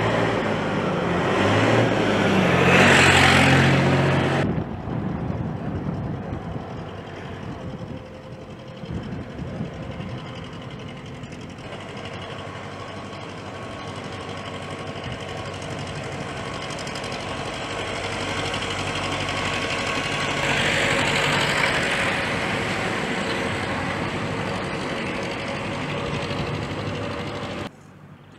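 Road traffic with heavy vehicle engines running steadily; vehicles pass loudly about three seconds in and again around twenty-one seconds in. The sound drops off suddenly near the end.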